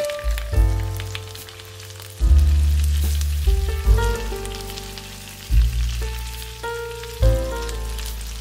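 Cauliflower steaks frying in olive oil and butter in a pan, sizzling with small crackles. Background music plays over it, with a deep bass note about every second and a half.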